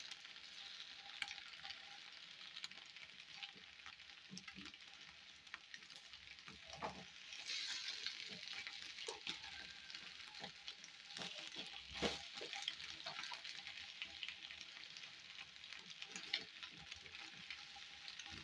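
Egg pieces sizzling faintly in a non-stick frying pan over raised heat, with the soft scrapes and taps of a spatula stirring and turning them, a couple of louder taps along the way.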